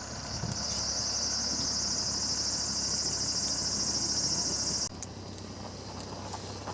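A high, fast-pulsing insect trill, most likely crickets, which stops abruptly about five seconds in.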